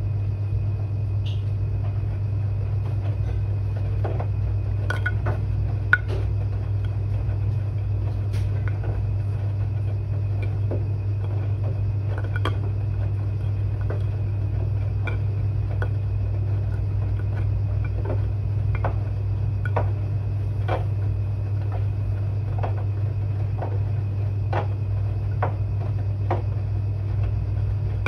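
Washing machine running a quick 30 °C wash cycle: a steady low motor hum as the drum turns, with scattered light clicks and clinks.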